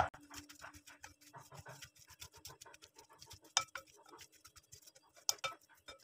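Wooden spatula stirring sliced onions and spice powders in a glass bowl: quick, irregular scraping and clicking, with a few sharper knocks of wood against glass about halfway through and again near the end.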